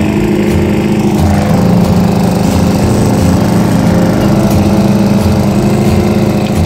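Walk-behind lawn mower engine running steadily and loudly at close range.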